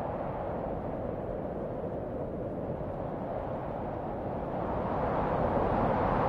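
A steady rushing rumble with no speech or music, swelling louder and brighter over the last two seconds.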